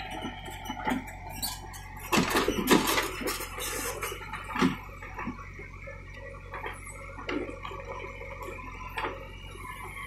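JCB 3DX backhoe loader's diesel engine running steadily while its rear bucket scrapes and clatters through broken asphalt and stones. The bucket clatter is loudest and busiest about two to four seconds in, with single knocks after that.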